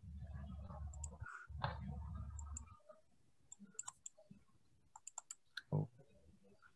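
Computer mouse clicking in a few short runs, in the second half, after a low rumble in the first few seconds. Near the end comes a brief low vocal sound.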